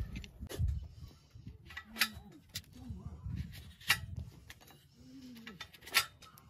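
A farrier's hoof nippers and hoof knife cutting the horn of a donkey's hoof, trimming away rotten hoof: three sharp, crisp snaps about two seconds apart.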